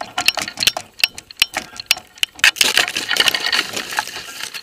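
A rapid, irregular clatter of clicks and knocks, thickening into a denser rattle about two and a half seconds in.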